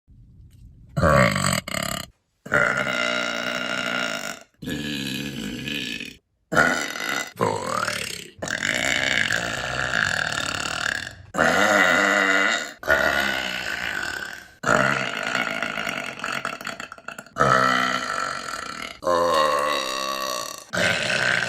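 A woman's burps, one after another, about a dozen of them. Most are long and drawn out, and each starts or stops abruptly where the next is spliced in.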